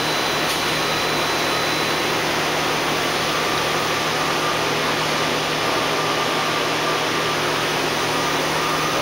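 Campbell vertical CNC grinder running, a steady, even hiss with a low hum beneath. A faint high whine fades out in the first couple of seconds, and a faint mid-pitched tone comes in about three seconds in.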